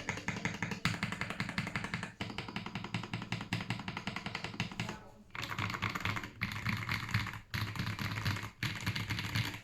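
GAS67 mechanical keyboard with Akko Cream Yellow linear switches being typed on fast, a dense run of deep, thocky keystrokes broken by a few short pauses. Background music plays underneath.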